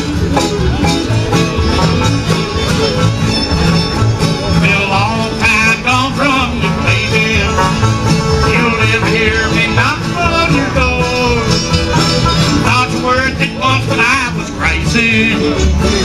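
Bluegrass band playing live: banjo, guitar and fiddle over a bass line, with a wavering lead melody coming in from about five seconds in.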